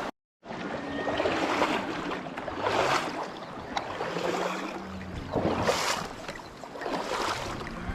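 Flowing river water with wind buffeting the microphone, rising and falling in gusts, after a brief dropout at the very start.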